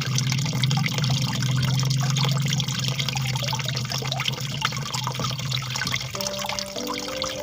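Water trickling and splashing steadily in a gentle babble. Soft music notes come in near the end.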